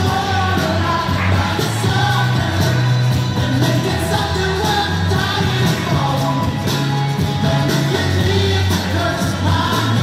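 Background music: a song with a sung vocal over a steady drum beat and bass.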